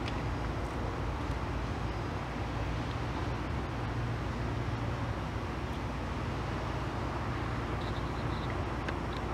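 A steady low rumble with a hiss above it, unchanging, and a few faint high chirps near the end.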